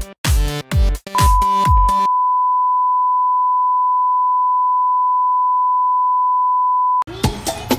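Electronic music with a heavy kick beat stops about two seconds in, and a steady high test-tone beep, the standard 1 kHz reference tone played with TV colour bars, holds alone for about six seconds. Near the end the tone cuts off and other music with percussion starts.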